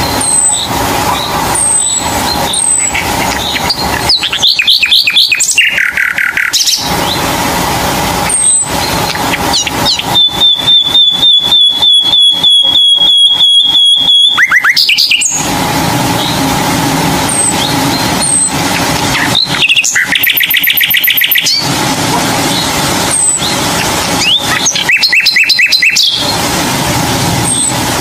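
Songbirds singing and calling over a steady background hum: series of short high chirps, and a long, even, rapidly pulsed trill lasting about five seconds near the middle.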